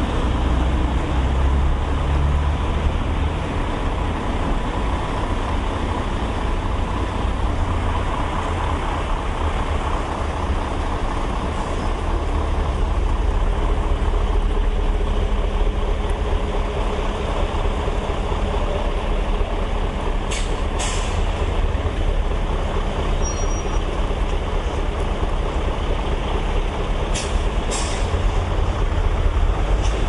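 Steady rumble of road traffic, cars and trucks passing. About twenty seconds in, and again some seven seconds later, comes a pair of short, sharp hisses.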